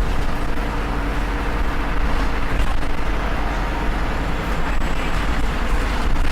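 Volvo B7RLE bus's seven-litre six-cylinder diesel engine running steadily under way, with road noise.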